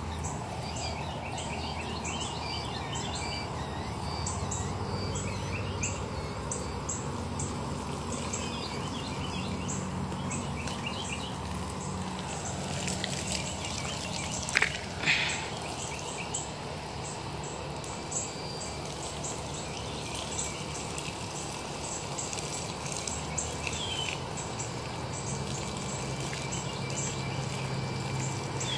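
Garden hose spray nozzle spraying water in a steady hiss onto a skinned rabbit carcass and tree bark. Birds chirp now and then, and there are a couple of sharp knocks about halfway.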